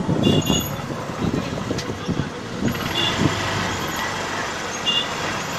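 Motorcycle engine running steadily at idle, with handling knocks on the microphone and three short high chirps.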